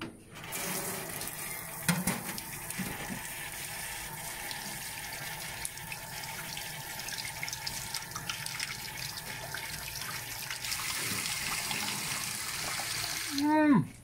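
Kitchen tap running into a stainless steel sink, the water splashing over a cob of boiled corn and a plate as they are rinsed. The flow cuts off just before the end, with a short squeak falling in pitch.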